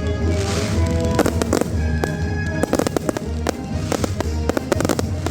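Fireworks going off in quick succession, many sharp bangs and crackles one after another, with music playing along.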